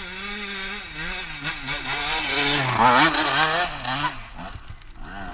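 Dirt bike engine running as it is ridden, its revs rising and falling with the throttle, loudest about three seconds in.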